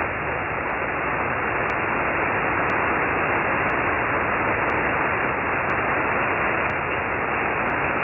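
Steady hiss of HF band noise from an Icom IC-7610's SSB receiver, cut off sharply at the top like narrow single-sideband audio, with no voice coming through. A faint tick sounds about once a second.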